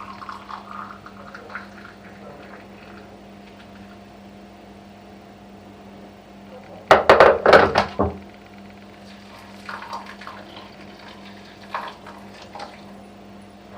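Freshly boiled water poured from a kettle over dry bulgur in a bowl, a brief loud splash about seven seconds in, among light clinks of kitchenware. A steady low hum runs underneath.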